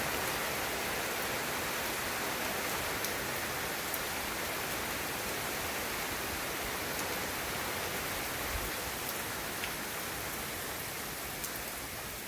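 Steady rain falling, an even hiss with occasional sharp ticks of individual drops.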